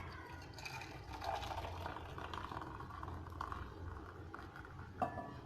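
Hot kahwa (spiced green tea) poured from the pan into a cup, a faint uneven trickle over a low hum, with a short knock about five seconds in.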